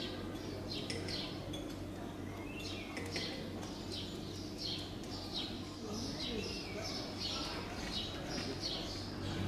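A small bird chirping over and over, short falling notes coming about one or two a second, over a low steady background hum.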